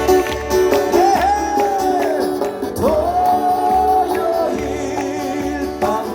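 Acoustic guitar strumming a folk song, with two long held notes that slide up into pitch, likely sung, about a second in and about three seconds in.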